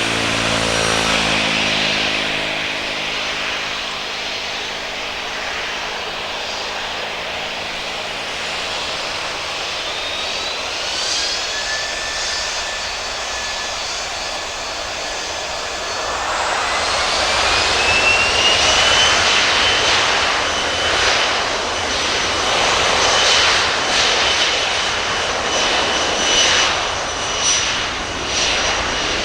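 Boeing 737-300 freighter's CFM56 jet engines spooling up for takeoff. The engine whine rises in pitch about ten seconds in, holds, then rises again about sixteen seconds in to a steady high whine as the sound grows louder at takeoff thrust.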